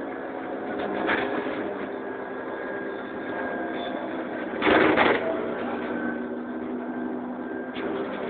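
Cabin noise of a Karosa Citybus 18M articulated city bus under way: the engine and drivetrain run steadily, with small rattles and knocks. About halfway through comes a short, loud rush of noise.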